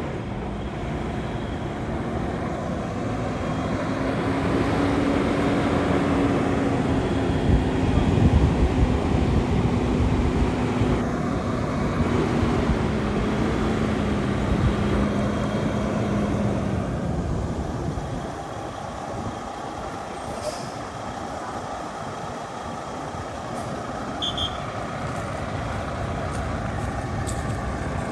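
Semi truck's diesel engine running as the truck moves, its hum climbing slightly in pitch and then sinking over about a dozen seconds. About two-thirds of the way in the engine sound falls away, leaving a lower rumble with a couple of brief high chirps.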